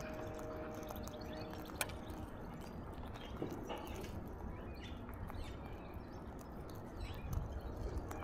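Alexandrine parakeet feeding at a window-sill feeder: a few scattered sharp clicks of seed-cracking over a steady low background rumble.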